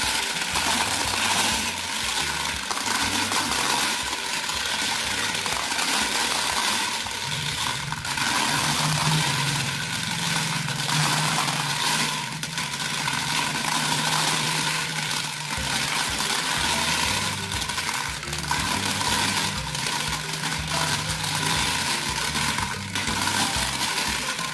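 Glass marbles clattering and clinking as they tumble out of a Bruder toy cement mixer's plastic drum, slide down its chute and pile into a plastic toy pickup's bed: a continuous dense rattle of many small clicks. A low hum runs under it from about seven seconds in until near the end.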